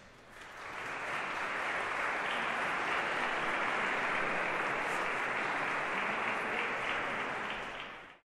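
Audience applauding, building up over the first second and then holding steady until it cuts off abruptly near the end.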